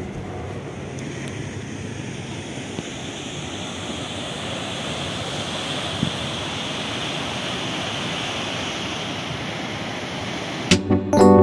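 Ocean surf washing in, a steady rush of breaking waves that swells a little midway. Keyboard music comes in near the end.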